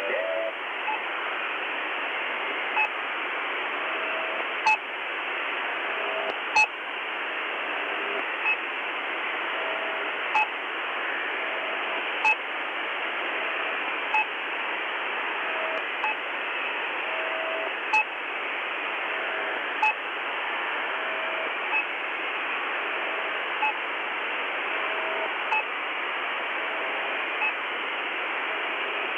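Shortwave 'pip' channel-marker signal on 6218 kHz, received in upper sideband on a Tecsun PL-330. Short beeps come about every two seconds over a steady static hiss.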